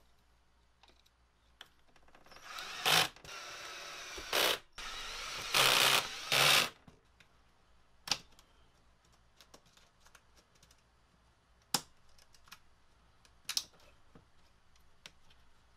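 Ryobi cordless drill running in several short bursts over about four seconds, its motor speeding up at each start. Then a few isolated sharp clicks of hand tools and parts being handled.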